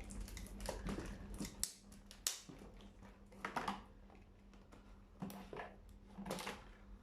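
Toy box packaging being handled and opened: scattered short crinkles, rustles and clicks of cardboard and plastic, a second or so apart, fairly faint.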